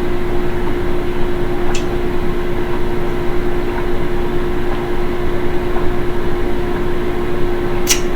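A kitchen appliance hums steadily with one constant low tone over a soft hiss. There is a faint click about two seconds in and another near the end.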